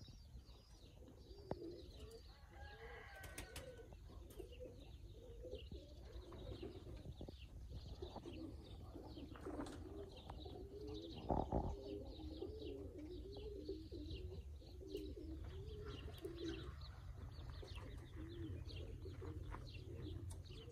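Pigeons cooing over and over in low, wavering calls, with small birds chirping high above them and a steady low rumble underneath. A brief thump, the loudest sound, comes about eleven seconds in.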